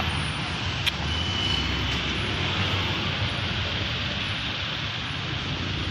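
A vehicle engine running steadily: a low, even rumble under a broad hiss, with one brief click about a second in.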